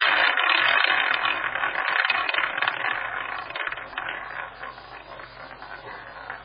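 Roulette wheel spinning with the ball running round it: a dense run of rapid clicking that starts abruptly, loud at first, and slowly fades over several seconds.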